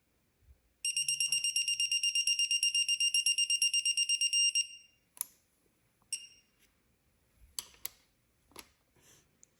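Digital torque tool beeping: a high electronic tone pulsing about ten times a second for nearly four seconds, then two short beeps, signalling that the cam cap bolt has reached its 13 Nm target torque. A few sharp clicks follow near the end.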